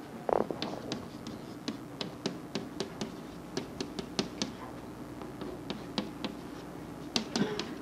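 Chalk writing on a blackboard: an irregular run of sharp taps and short scratches as the strokes go down, a few each second.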